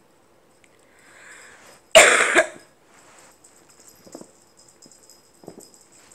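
A person coughs once, a short loud cough about two seconds in, just after a breath in.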